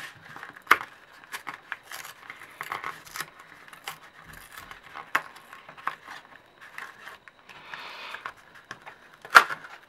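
Paper being torn open along a hand-made perforation and handled, irregular rustles and crackles with a longer tear shortly before the end. The loudest is a single sharp snap near the end.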